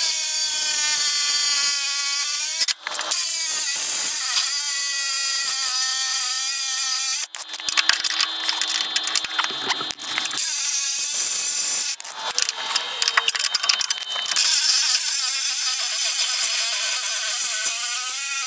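Reciprocating saw cutting through a steel stitch weld, a whine over harsh hiss that wavers in pitch as the blade loads up. It stops and restarts several times.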